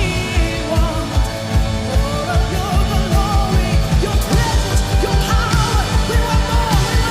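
Live worship band playing, with a fast, steady low beat of about four thumps a second and a voice singing a wavering melody over it.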